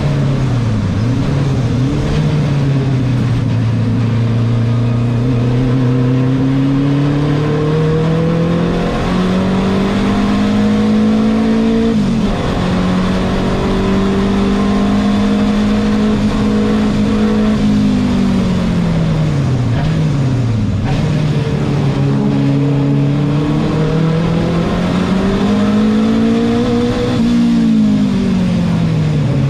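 Renault 5 Turbo 2 race car's mid-mounted turbocharged four-cylinder engine at racing speed, heard from inside the cockpit: the revs climb under full throttle and drop sharply at an upshift about twelve seconds in, fall away past the middle under braking and downshifts, then climb again and drop at another shift near the end.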